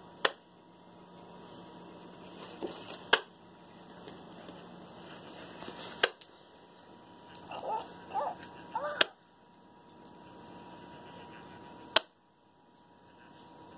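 Hatchimals toy pecking at the inside of its plastic egg shell while hatching: a sharp tap about every three seconds. A few short chirping calls from the toy's electronic voice come about two thirds of the way in.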